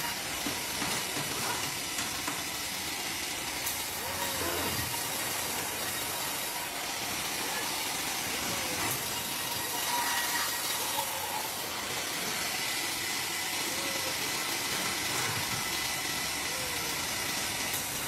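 Steady hissing machine noise from a Wood-Mizer WM4500 industrial band sawmill running, with a few faint short squeaks every few seconds.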